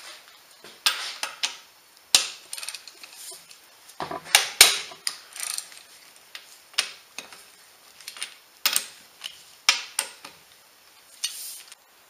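A wrench and metal parts clicking and clanking on a partly disassembled Ford Duratec 2.3 four-cylinder engine. About a dozen irregular sharp metal clicks and knocks, the loudest a cluster about four and a half seconds in.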